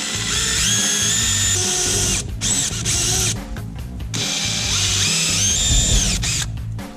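Small handheld power tool whining as it cuts a carbon fiber plate, its pitch stepping up and down with the trigger, dropping out briefly a couple of times and winding down near the end.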